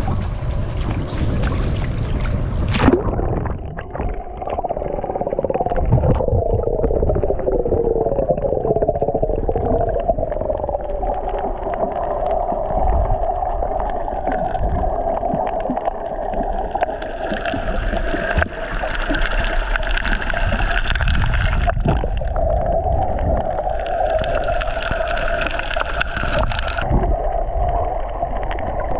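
Whale song: long wavering moans that glide up and down, with gurgling calls. Higher steady tones join in twice in the second half.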